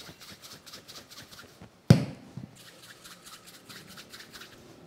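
Hands rolling a portion of soft flour dough between the palms into a ball, a quick run of dry rubbing strokes. There is one sharp knock about two seconds in.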